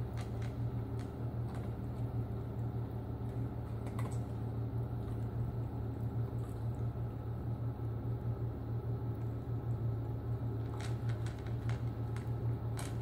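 A dog eating dry kibble from a ceramic bowl, with light irregular clicks and crunches, a few bunched near the end, and a cat lapping water from the bowl beside it. Under it all is a steady low hum.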